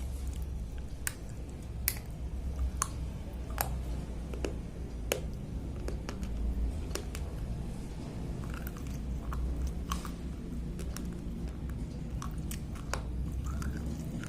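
Slate pencils being bitten and chewed: sharp, irregular crunches and clicks of hard chalky stone between the teeth, over a steady low hum.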